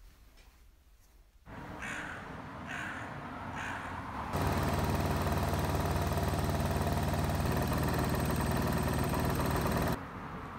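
A crow caws three times, about a second apart. Then a tap runs hard into a stainless-steel sink for about six seconds and stops suddenly.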